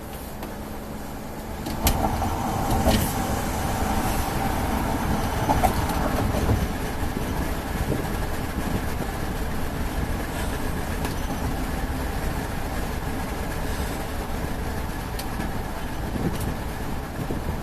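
A vehicle running with a steady rumble and road noise that swells about two seconds in, with a few sharp knocks around two to three seconds in.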